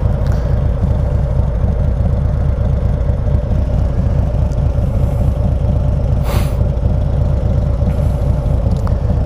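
Harley-Davidson CVO's V-twin engine running steadily under way: a constant low, fast-pulsing rumble with a steady drone above it, and a short hiss about six seconds in.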